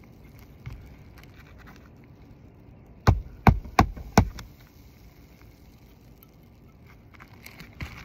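Four quick, sharp blows of a magnetic roofing hammer driving a roofing nail through a new asphalt shingle, about three seconds in.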